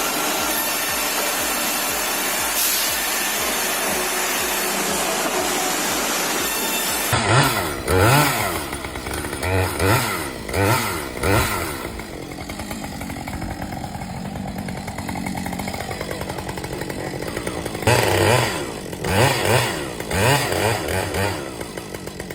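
Steady machine noise for about the first seven seconds, then an abrupt change to a chainsaw revving in a series of short bursts that rise and fall in pitch. A steadier stretch of running comes in the middle, and then another run of bursts follows.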